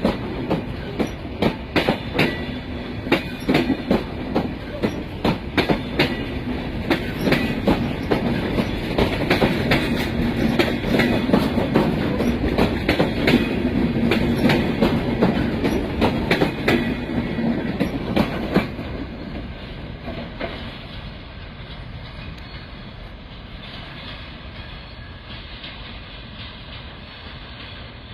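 Train running on the rails, wheels clicking rapidly and irregularly over the rail joints above a steady rumble and low hum. About two-thirds of the way through, the clicking stops and the sound falls to a quieter, duller rumble.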